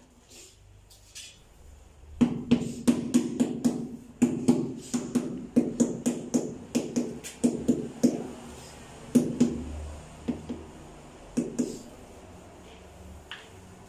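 Rubber mallet tapping ceramic wall tiles to bed them into the mortar: a long run of short, dull knocks, about two to three a second and irregular, starting about two seconds in and stopping near the end.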